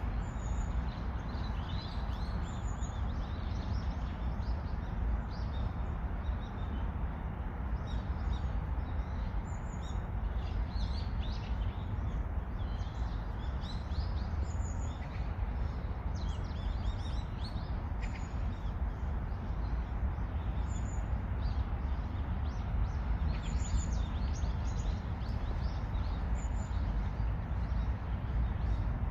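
Small songbirds chirping and twittering, with many short high notes scattered throughout, over a steady low rumble.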